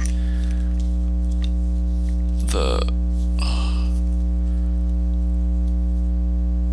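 Steady electrical mains hum with a stack of overtones on the recording, with two brief soft noises a little past the middle.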